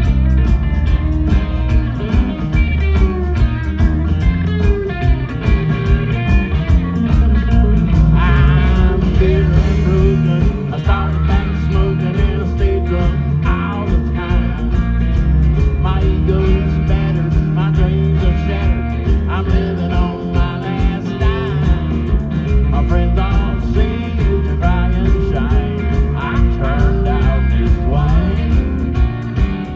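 Live country-rock band playing loudly, with a steady drum and bass beat under wavering lead guitar lines.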